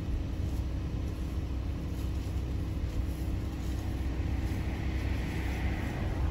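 Pickup truck engine idling: a steady low rumble with a faint hum, and a light hiss that swells in the second half.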